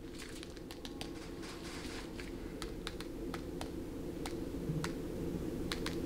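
Light, irregular tapping clicks, about a dozen, from gloved fingertips keying numbers into a smartphone calculator, over a steady low hum.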